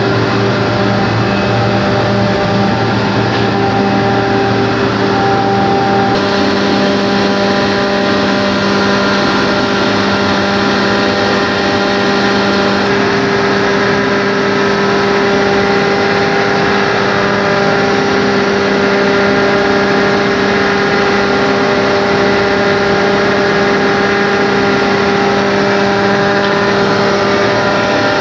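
CompKorea CKDX 660 rotary screw air compressor running: a loud, steady machine drone with a strong hum, changing slightly in tone about six seconds in.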